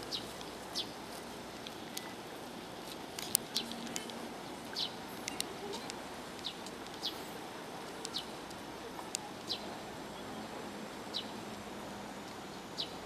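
Short, high bird chirps repeating irregularly, about one a second, over a steady outdoor background hiss.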